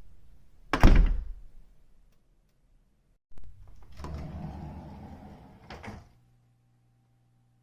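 A door shutting with one loud thud about a second in, then a door being worked again a couple of seconds later: a few seconds of scraping movement with a click at the start and a click near the end as it latches.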